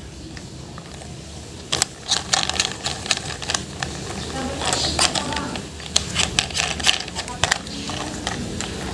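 Plastic toy vehicles being handled: a run of sharp clicks and knocks beginning about two seconds in and stopping near the end, over a faint voice.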